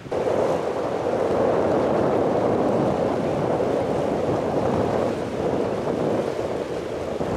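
Steady rushing noise of wind buffeting the microphone at the waterside, mixed with the wash of the sea.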